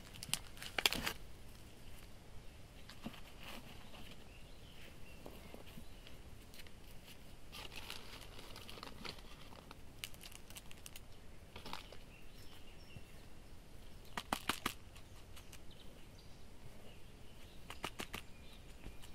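Thin black plastic nursery pots and a plug tray being handled while rooted cuttings are potted up in a peat-and-perlite mix: scattered crinkles and clicks of the flexing plastic with soft rustling of the soil, loudest about a second in and again around fourteen seconds in.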